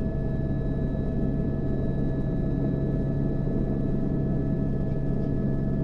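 AS350 helicopter heard from inside the cabin, running steadily at flight power: a constant low hum with a steady whine from the turbine and gearbox over rotor noise, with no change in pitch or level.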